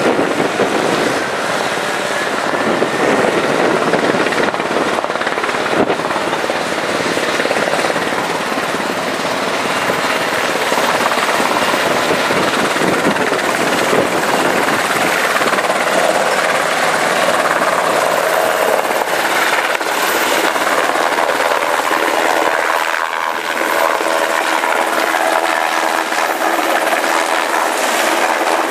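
Navy H-60 Seahawk helicopter's rotor and turbine noise, steady and loud, mixed with wind across the deck as it hovers with a slung cargo load during vertical replenishment. Its engine tone becomes clearer over the second half as it comes close overhead.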